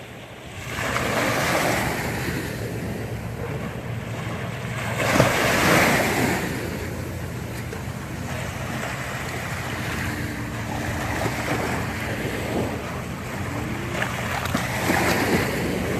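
Jet ski running on open water: a steady low engine hum under rushing water spray and wind on the microphone, swelling louder about a second in, around five to six seconds in, and near the end.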